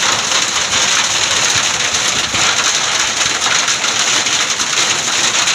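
Heavy hailstorm: hailstones and rain pelting a road and walls, a dense, steady hiss made of countless small impacts.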